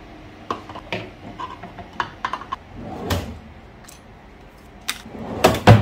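Household handling sounds, most likely in a kitchen: a string of light clicks and knocks, a brief rustle about three seconds in, and two heavier knocks close together near the end, the loudest part.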